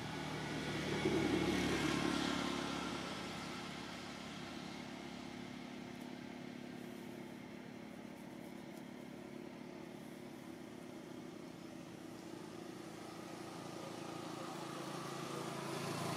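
A motor vehicle passing by, its engine growing louder to a peak about a second or two in and then fading away. Another vehicle approaches near the end.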